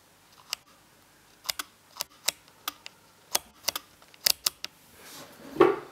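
About a dozen sharp, irregular clicks and taps of small plastic parts being handled and pressed, spread over about four seconds, followed by a short breath or mouth sound near the end.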